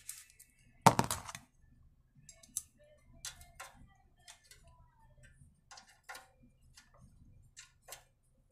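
Steel hex key clicking and tapping against the valve cover bolts of a small generator engine as they are screwed in, with one sharp metallic knock about a second in, then a run of small irregular clicks.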